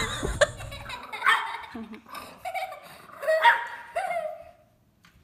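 A dog barking and yelping in about five short calls, each sliding up or down in pitch, stopping shortly before the end.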